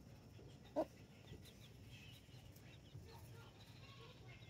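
A chicken gives one short cluck about a second in, with faint, high peeping of chicks after it.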